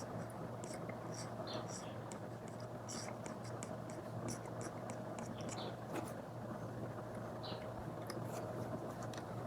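Apple Pencil tip scratching and tapping on an iPad's paper-like screen protector in short, irregular strokes, over a steady low hum and hiss.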